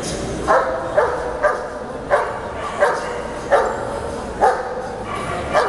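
A dog barking about eight times at uneven intervals, roughly one sharp bark every half second to a second, over steady background hall noise.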